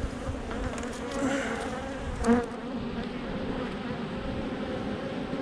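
A colony of Italian honey bees (Apis mellifera ligustica) buzzing over an open hive, a steady hum that swells briefly a little past halfway through.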